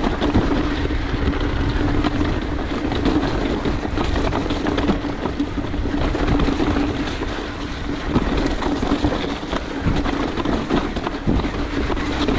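Mountain bike riding down a dirt trail: tyres on the ground and the bike rattling and knocking over the bumps, with wind on the microphone and a steady hum underneath.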